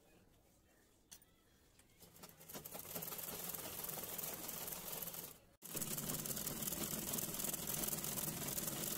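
Domestic sewing machine starting up about two seconds in, gathering speed, then running steadily as it stitches a fabric waistband. There is a brief break a little past halfway.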